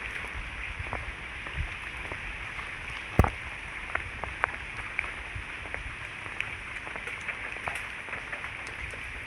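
Night rain: a steady hiss with scattered drops pattering close by, and one louder knock about three seconds in.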